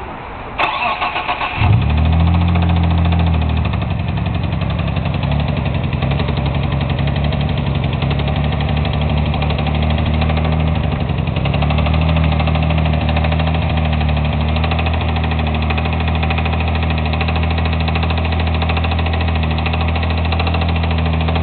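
Mitsubishi 3000GT VR4's twin-turbo V6 being cranked by the starter for about a second, catching, running briefly at a higher speed, then settling into a steady idle with a knock from inside the engine. The knock is the fault that means the engine has to be rebuilt.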